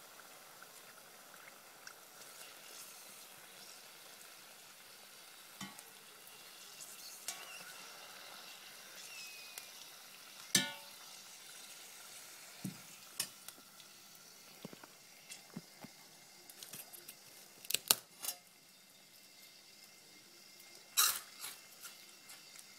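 Pork rinds frying in a pot of hot oil: a quiet, steady sizzle, broken by metal knocks and clatters of a perforated skimmer against the pot. The loudest knock, about halfway through, gives a brief metallic ring, and several more clatters come near the end.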